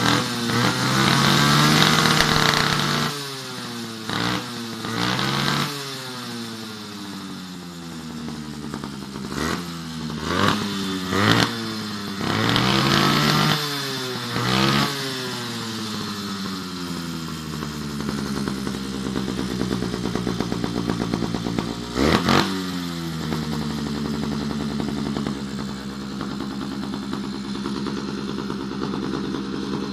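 Motorized bicycle's small engine revved in repeated throttle blips, each rising and then falling back in pitch. It settles to a steady idle for the last several seconds.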